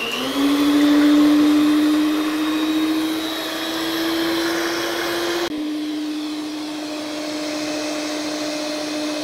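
Electric stand mixer running at top speed, its beaters whipping eggs to a foam. A steady, high motor whine that settles in just after the start and drops slightly in pitch about halfway through.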